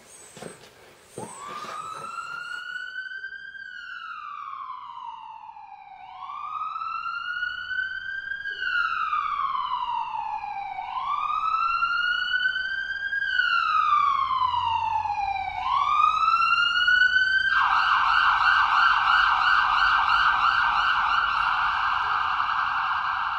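Electronic emergency-vehicle siren sounding a wail that slowly rises and falls about every five seconds, then switches to a fast yelp warble about three quarters of the way through.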